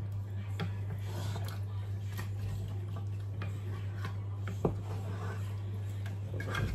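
Wooden spatula stirring food in a pot, with scattered light taps and scrapes against the pot and one sharper knock about two-thirds of the way through, over a steady low hum.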